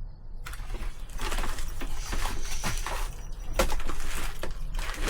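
Birds calling over a steady low hum, with scattered short clicks and crackles.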